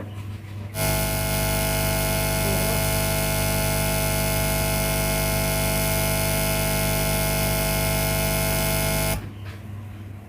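Loud, steady electrical buzz with hum coming through powered PA speakers. It cuts in about a second in and stops suddenly near the end, with a fainter low hum left underneath. This is the fault being chased in the sound system, which the owner puts down to a faulty XLR cable.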